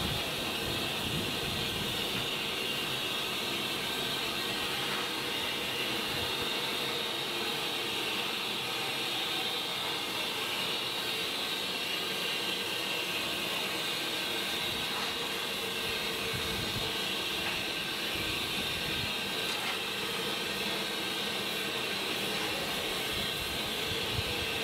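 Steam locomotive, an LMS Stanier Black 5 4-6-0, standing in steam and hissing steadily with escaping steam.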